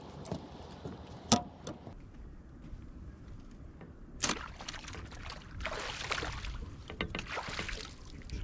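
A sharp snap about a second in and a knock around four seconds, then a few seconds of splashing as a bowfishing arrow is pulled up out of the water over the boat's side.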